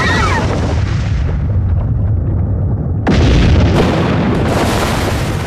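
Cartoon explosion sound effect, the rigged lab blowing up. A sudden blast at the start trails off in a long low rumble, and a second, louder blast comes about three seconds in.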